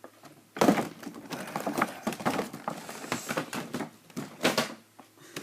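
Hands handling plastic toy packaging and small plastic accessories: a quick run of clicks, taps and rustles that starts about half a second in.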